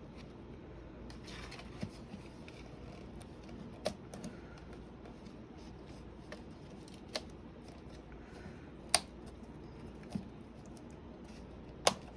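Sparse sharp plastic clicks, about six spread a second or two apart, as a replacement keyboard is pressed down and seated into a Dell Latitude E5470 laptop's chassis, its tabs snapping into place.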